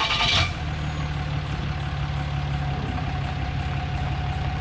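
Pickup truck engine just started: a loud start-up burst that dies away about half a second in, then the engine idles steadily.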